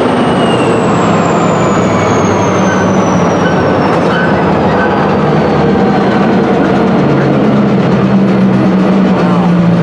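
Freight cars rolling slowly along yard track: a steady rumble and hum of wheels on rail, with a thin high squeal that slowly falls in pitch over the first several seconds.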